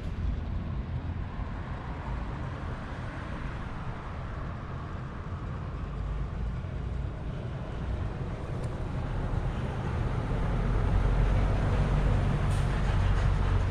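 Steady low rumbling road noise, growing louder about ten seconds in.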